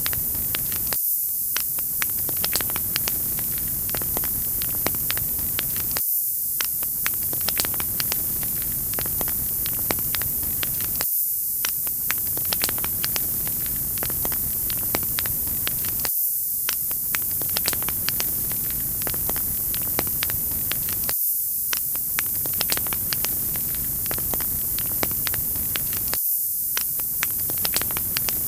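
Wood fire crackling, with many small sharp pops over a steady hiss. The same few seconds of crackle repeat about every five seconds.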